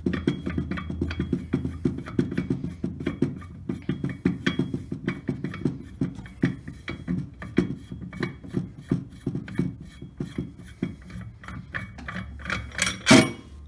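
Rapid, irregular metallic clicking as a clutch puller is backed out of a snowmobile's primary clutch, with one louder scraping clunk near the end.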